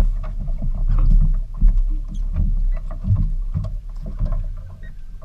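Small fishing boat on the water: a steady low rumble with irregular knocks and thuds, about several a second, from the hull and gear moving with the swell.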